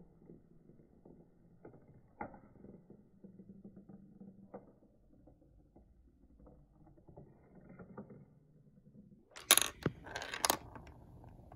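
Marbles rolling and rattling along a plastic marble-run track, a faint low rumble with small scattered clicks. Near the end comes a short burst of sharp plastic clacks and clatter, the loudest part.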